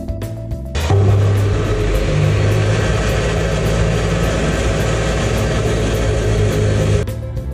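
Abrasive chop saw running and cutting through steel: a loud, even grinding noise over the steady hum of the motor. It begins abruptly about a second in and cuts off just before the end, with background music on either side.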